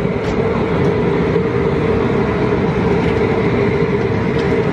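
Propane burner under the boil pot running steadily, with a constant loud rushing noise and a steady hum.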